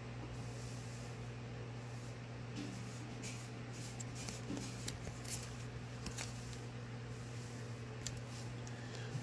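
Faint rustling and a few light crackles from novelty paper banknotes being handled, over a steady low hum.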